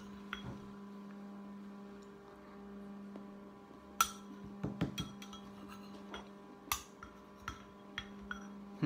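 A metal spoon clinking and scraping against a bowl, a few separate clinks and scrapes mostly from about four seconds in, over a steady low hum.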